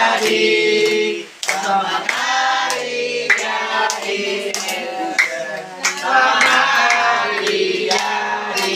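A small group of adults and children singing together while clapping their hands along. The singing breaks off briefly about a second and a half in, then carries on.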